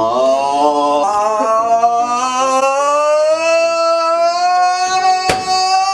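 A singing voice holds one long note that slowly rises in pitch, over a backing of held chords; a sharp click sounds about five seconds in.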